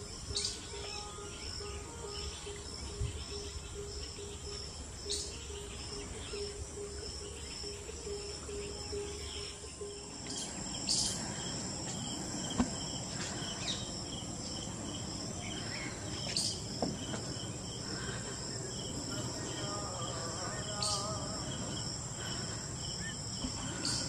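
Insects trilling steadily in a high, evenly pulsing chorus, with a few short bird chirps.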